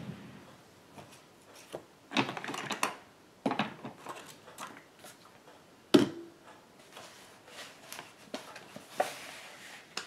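Paper-crafting supplies handled and rummaged through on a desk: rustling and clattering in several short bursts. A single sharp knock about six seconds in is the loudest sound.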